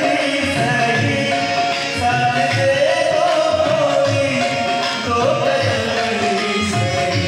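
A man singing a long, drawn-out, wavering melody into a handheld microphone, over a hand drum keeping a steady beat.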